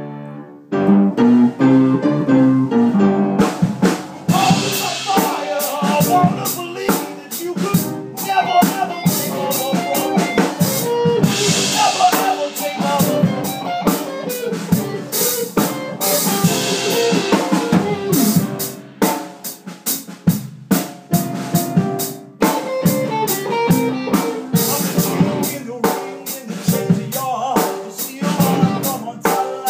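Instrumental band section of a song: a full drum kit with kick, snare and rimshots, with cymbal crashes, over bass and other pitched instruments. The full band comes in about a second in.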